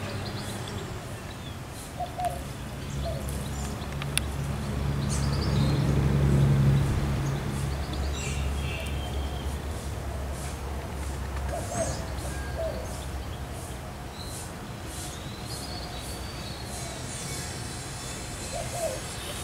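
Outdoor ambience of scattered bird chirps and calls over the low hum of a distant motor, which swells about six seconds in and fades away by about ten seconds.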